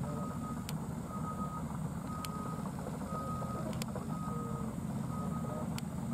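Back-up alarm of heavy construction machinery beeping about once a second, each beep about half a second long, over the steady low rumble of diesel engines. A few sharp clicks come at irregular intervals.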